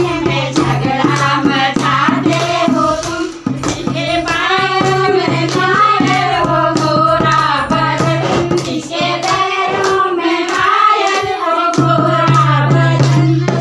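Group singing of a folk song to a steady beat of regular sharp strikes, accompanying a dance.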